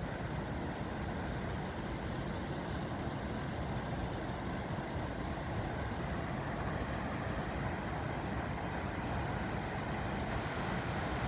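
Steady rush of river water pouring through a lock, an even, unbroken noise.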